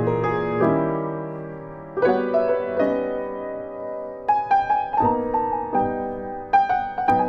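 Solo piano music, slow and gentle: sustained chords that ring and fade, with short runs of quicker notes twice.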